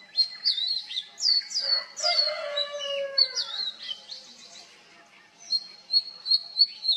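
Oriental magpie robin singing: a run of short, clear whistles and quick downward-slurred notes, high-pitched, with a pause of about a second past the middle before the phrases start again. A lower, falling call with several overtones cuts in about two seconds in.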